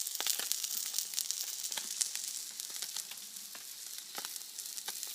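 Scallop roe sizzling and frying in a hot pan, a steady hiss with frequent small crackles and pops of spitting fat.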